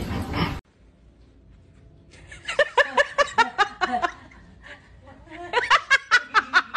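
A person laughing in two runs of quick short 'ha-ha' pulses, the first about two seconds in and the second near the end. Before that, a short stretch of noise cuts off abruptly under a second in.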